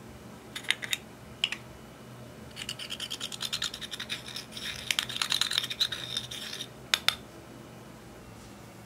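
Pressed eyeshadow being scraped and crumbled out of its pot with a small tool: a rapid scratching run lasting about four seconds, with a few sharp clicks from handling the pot before and after.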